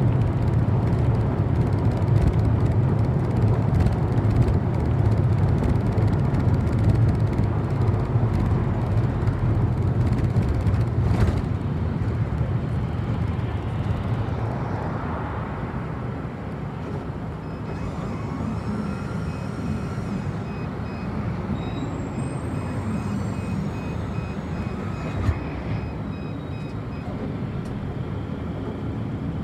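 City bus engine and road noise heard from inside the cabin: a heavy low rumble that eases about halfway through as the bus slows. A faint high beeping repeats in the second half.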